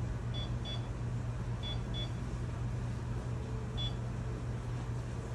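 Short high-pitched electronic beeps from a device: two pairs of beeps and then a single one, over a steady low hum.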